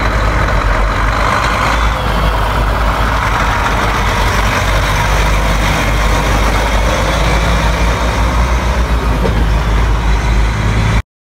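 Heavy Volvo truck's diesel engine and tyres as it drives past and pulls away, a loud steady rumble with road noise. The sound cuts off suddenly near the end.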